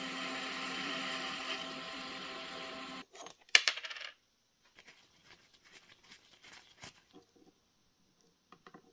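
Mini lathe motor running with a steady hum, cutting off sharply about three seconds in. About half a second later comes one loud metallic clink with a brief ring as the steel tool bar is pulled from the holder, followed by faint handling clicks.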